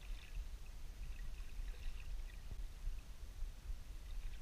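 Underwater ambience picked up by a camera submerged in a freshwater reservoir: a steady low rumble of water moving over the housing, with scattered faint crackles and ticks.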